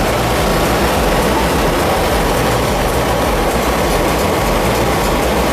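Heavy machinery running loudly and steadily, a continuous rumble with dense grinding noise over it.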